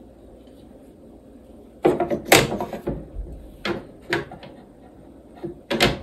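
Wooden knocks and clacks from an Ashford SampleIt rigid heddle loom as the heddle is shifted and beaten against the weft. After about two quiet seconds come a handful of sharp knocks, the loudest just after two seconds and the last near the end.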